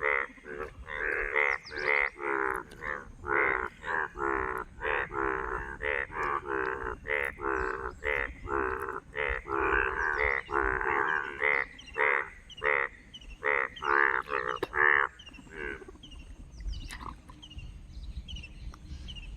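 Frogs croaking after rain: a loud chorus of short croaks, about two a second, that thins out to faint scattered calls about fifteen seconds in.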